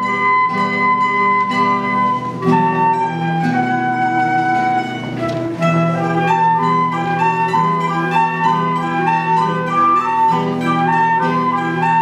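Live acoustic ensemble: a transverse flute plays the melody over plucked strings including a guitar. Held notes at first, then a quicker run of notes from about halfway.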